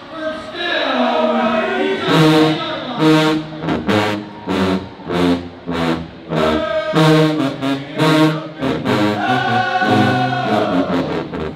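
Marching band playing a fanfare: trumpets and sousaphones sound short, punchy brass chords one after another, with drum and cymbal hits cracking between them.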